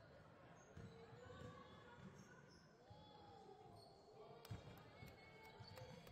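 Faint sounds of a basketball game on a hardwood gym floor: a ball bouncing in scattered thumps, short high sneaker squeaks and occasional voices calling out. A sharper knock comes about four and a half seconds in.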